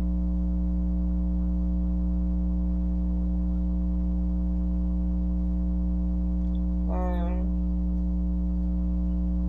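Steady electrical mains hum with buzzing overtones, unchanging throughout. A brief voice sound breaks in about seven seconds in.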